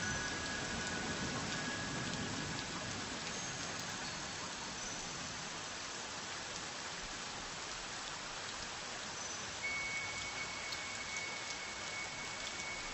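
Steady rain falling, an even patter. A faint held high tone comes in about ten seconds in.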